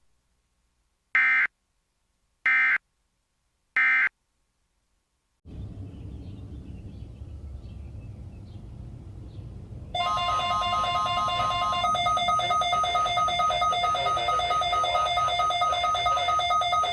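Three short chirping bursts of EAS digital data, the end-of-message code that closes an Emergency Alert System test. Then radio hiss, and about ten seconds in the NOAA Weather Radio warning alarm tone starts and holds steady and buzzy through the receiver.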